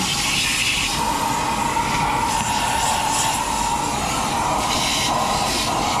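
Small portable vacuum running steadily with a constant whine and hiss, its hose nozzle sucking dust out of the upper compartment of a gas furnace.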